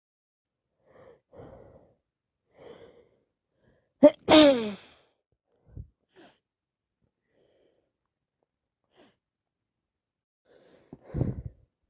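A person with a head cold sneezing: a few breathy inhalations build up to one loud sneeze about four seconds in, its voiced 'choo' falling in pitch. Small sniffles follow, and another short, lower burst of breath comes near the end.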